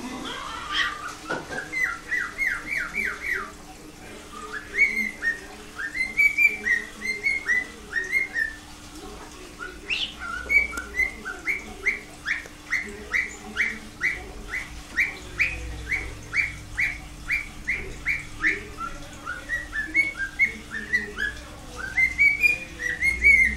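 White-faced cockatiel whistling its song: phrases of quick rising whistle notes, several a second, broken by short pauses.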